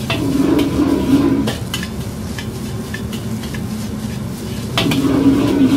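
Metal ladle scraping and knocking against a wok as fried rice is stir-fried over a wok burner, with a steady sizzle. Short clanks recur irregularly throughout, and a low drone swells during the first second and a half and again near the end.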